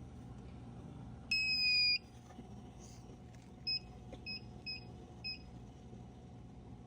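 Vending machine keypad beeping: one long beep about a second in, then four short beeps in quick succession, as selections are keyed in to check prices. A steady low hum runs underneath.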